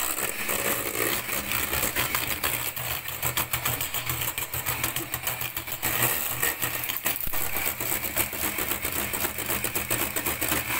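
Bosch electric hand mixer running steadily, its twin wire beaters whipping egg whites into foam in a stainless steel bowl, with a steady motor hum and a rapid clatter.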